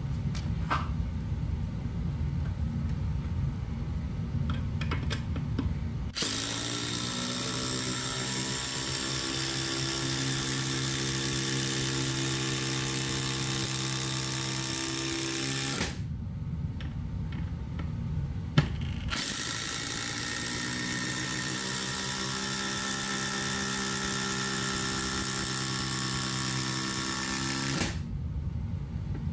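Ryobi ONE+ brushless impact driver (PBLID02B) driving a long screw into stacked lumber. It spins up about six seconds in and hammers steadily for about ten seconds, stops briefly, then runs again for about nine seconds. Before it starts there is a low rumble with a few clicks.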